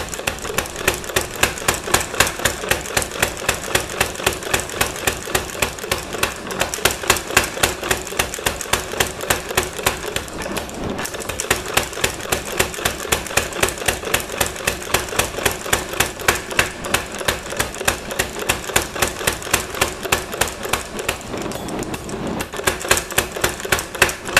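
Little Giant mechanical power hammer running, its ram striking a hot steel bar on the die in a fast, even rhythm of metallic blows. The blows ease off briefly about ten seconds in and again near the end.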